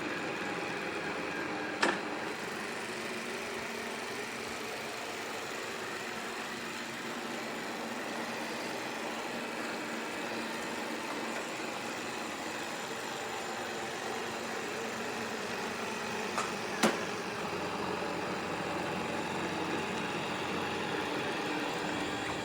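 Robot vacuum running: a steady whirr of its suction motor and brushes, with two sharp knocks, one about two seconds in and one about three quarters of the way through.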